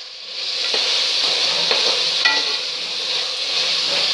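Mutton pieces and onions sizzling in hot oil in a pressure cooker pot, stirred with a steel spoon. The sizzle swells about half a second in, and the spoon clinks and scrapes against the pot a few times.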